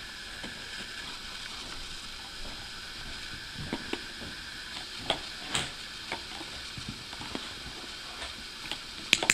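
Plastic stacking rings being handled and placed on a preschool ring-stacking toy by a golden retriever's mouth: scattered light clicks and knocks of plastic, a few in the middle and a quick cluster near the end, over a steady background hiss.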